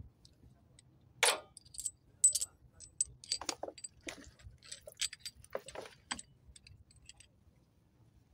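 Small metal engine parts clinking and rattling as they are handled and dropped into a plastic tray: a run of scattered light clinks, some with a brief high ringing, dying away near the end.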